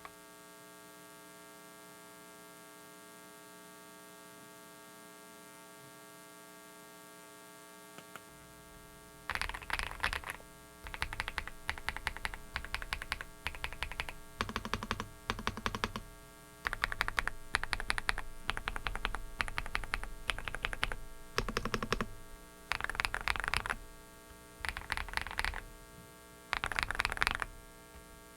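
Typing on a Dareu mechanical keyboard as a switch sound test: bursts of rapid keystroke clicks, each a second or two long with short pauses between. These start about nine seconds in. A steady electrical hum from a faulty microphone runs underneath, alone for the first part.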